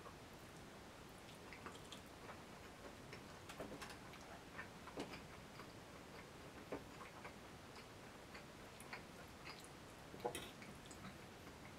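Someone eating: faint, irregular clicks of a fork on a plate, with chewing.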